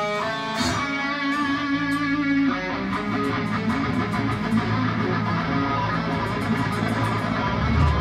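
Live hard-rock band playing an instrumental passage: a distorted electric guitar leads over bass and drums, with long held notes for the first couple of seconds and then a busier, denser stretch with cymbals.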